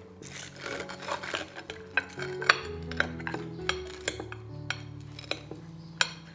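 A knife sawing through the crisp breadcrumb crust of fried chicken katsu, crunching, with several sharp clinks of knife and fork against the plate, the loudest about two and a half seconds in and near the end. Soft background music runs underneath.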